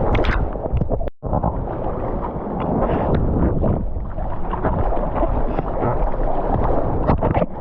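Wind buffeting the microphone over ocean water and surf, a steady rumbling noise with splashes, cut by a sudden brief dropout about a second in.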